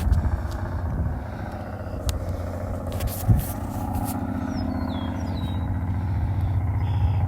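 Caterpillar C15 inline-six diesel engine running steadily, with a single loud knock about three seconds in.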